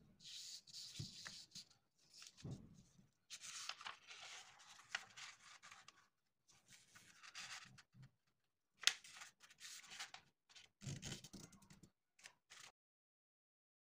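A square sheet of thin coloured paper being folded by hand into a triangle: repeated bursts of paper rustling and sliding as it is lifted, creased and smoothed, with a couple of soft knocks against the table.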